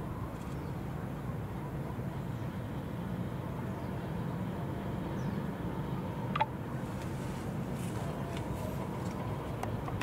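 Steady low engine-like rumble, with a short sharp chirp about six seconds in.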